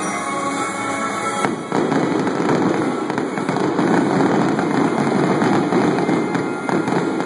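Aerial fireworks going off, turning into a dense barrage of bangs and crackles about a second and a half in, with music playing underneath.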